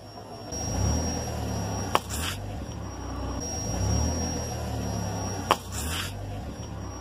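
Car engine rumbling at low revs as the tyre creeps over plastic bottles, with two sharp cracks, about two seconds in and again about five and a half seconds in, as plastic gives way under the tyre.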